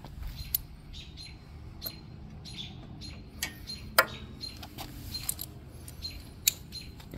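Small birds chirping repeatedly, two or three short chirps a second, over a few sharp clicks. The loudest click, about four seconds in, is locking pliers snapping shut to pinch off the fuel line.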